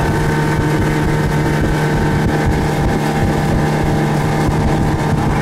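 A motorboat's engine running steadily under way, with wind buffeting the microphone.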